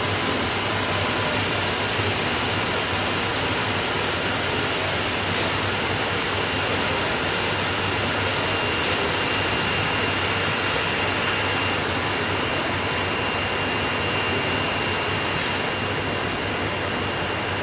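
C.R. Onsrud CNC router equipment running: a steady mechanical hum and hiss with a thin high tone, broken by three short clicks.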